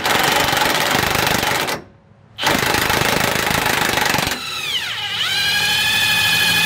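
Cordless impact wrench hammering on a bolt on the truck's rear axle, in two bursts with a short pause about two seconds in. Past the middle the hammering gives way to a smooth motor whine that dips in pitch and comes back up: the bolt has broken loose and is spinning freely.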